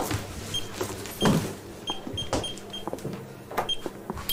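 Card payment terminal beeping at each key press as the card is run again and the PIN keyed in: short, high beeps among sharp taps and clicks, with a louder thump about a second in.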